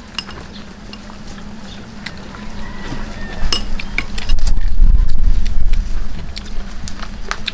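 Mealtime eating sounds: hands picking food off a banana leaf, with scattered small clicks and clinks and chewing. A loud low rumble swells in the middle and fades near the end.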